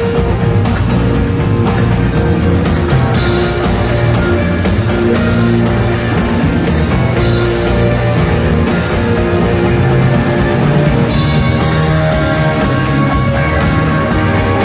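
Live rock band playing, with electric guitars over bass and drums, loud and steady.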